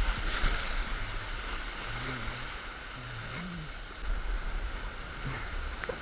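Rushing whitewater rapids heard from a raft at water level: a steady churning roar of water, with wind rumbling on the microphone.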